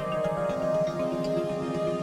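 Background music: calm new-age style instrumental with held notes.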